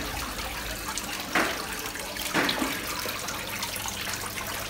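Water running and splashing steadily in an indoor koi pond, with two short louder sounds about a second and a half and two and a half seconds in.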